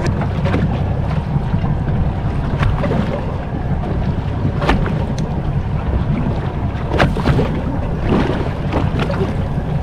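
Wind buffeting the microphone and water lapping against the hull of a drifting boat, a steady low rumble, with a few sharp knocks about halfway through and near the end.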